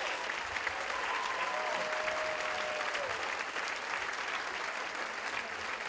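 Theatre audience applauding, with one long cheering call from the crowd from about one and a half to three seconds in.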